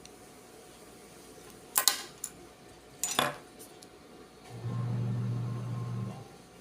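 Sharp clicks of a hand tool stripping the insulation off a sample of solid electrical wire, a quick cluster about two seconds in and another about a second later. Near the end comes a steady low hum lasting about a second and a half.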